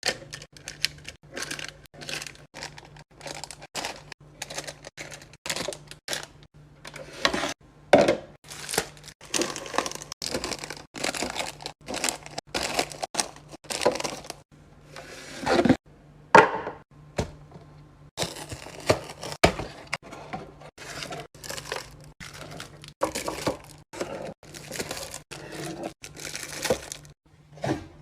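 Containers and packaging being handled and set down while restocking a fridge: a stream of irregular clicks, knocks and crinkles. A faint steady low hum runs underneath.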